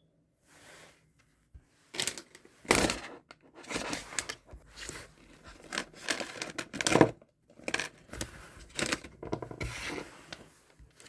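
Paper or plastic wrapping crinkled and torn by hand in irregular bursts, as an item is unwrapped.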